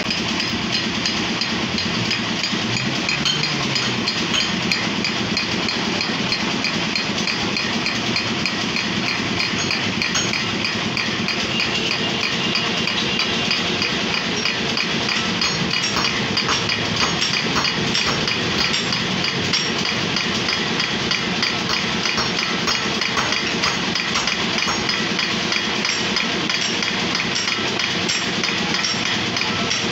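Metal lathe running, spinning a spoked motorcycle wheel mounted in its chuck: a steady mechanical drone with a fast, even ticking rattle on top, as when a rim is being trued.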